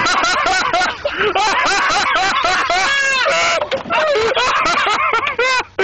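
Hard, loud laughter in quick repeated bursts, with one longer high-pitched laugh about three seconds in.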